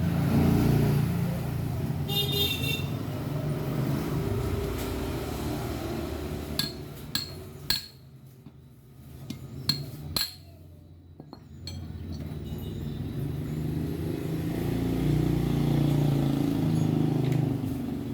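Small metal tools and valve parts clinking against a Honda Verza motorcycle's cylinder head during valve work. There are a few sharp clinks, most clearly about seven and ten seconds in, over a low steady rumble that drops away for a few seconds midway and then returns.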